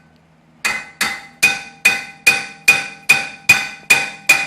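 Hammer striking a rusted-on rear brake rotor of a 2008 Infiniti G35x over and over to break it free of the hub: about two and a half sharp, ringing metal blows a second, starting about half a second in.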